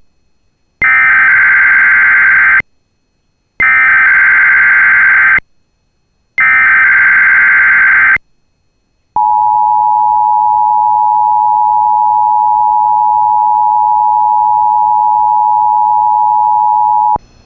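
Emergency Alert System signalling: three bursts of screeching digital SAME header data, each about two seconds long with a short pause between, then the steady two-tone EAS attention signal held for about eight seconds and cut off sharply. This sequence is what opens a new emergency alert.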